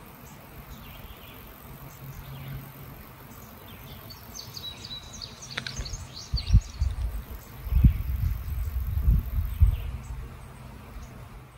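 Honey bee swarm in flight: a faint low hum under a few bird chirps about five seconds in. Strong low rumbles, the loudest sounds, come in the second half.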